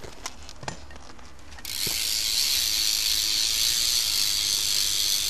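Sputnik Rewind 9-tooth cassette hub on a BMX rear wheel freewheeling. A few single clicks come first, then about a second and a half in its six pawls click so fast that they blur into a steady, loud buzz.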